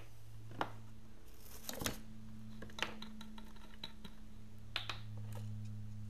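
Small clicks and a brief crinkle as plumber's tape is worked onto the threads of a metal hydraulic hose fitting and torn off, heard over a steady low hum.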